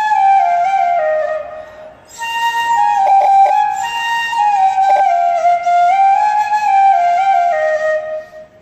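A solo wind instrument playing an Aagri-Koli folk melody (koligeet) in stepping phrases, with a short break about two seconds in before the tune picks up again.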